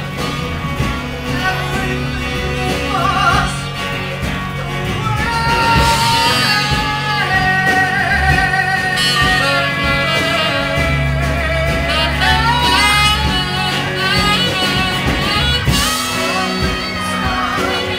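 Live band playing a rock song, with electric guitar and bass.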